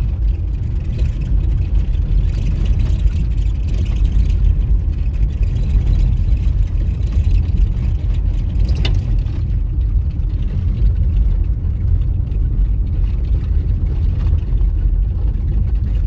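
Car driving on an unpaved dirt road, heard from inside the cabin: a steady low rumble of engine and tyres on the rough surface, with a brief sharp click about nine seconds in.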